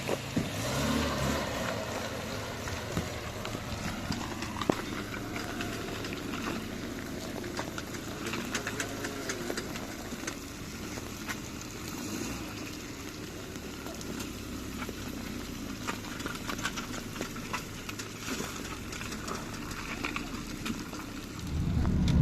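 Steady rain with many small drop ticks over the noise of city traffic.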